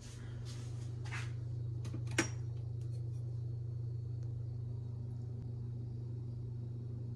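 A steady low hum throughout, with a short brushing hiss about a second in and a single sharp clink about two seconds in.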